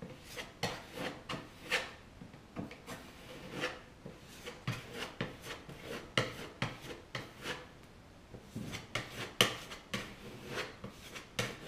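Small hand scraper scraping along the wooden edge of a countertop's sink cutout in short, irregular strokes, about one or two a second.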